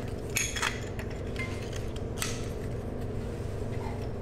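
Metal hand tools clinking and rattling against steel while rear brake caliper bolts are being removed: a short cluster of clinks about half a second in and a single one about two seconds in, over a steady low hum.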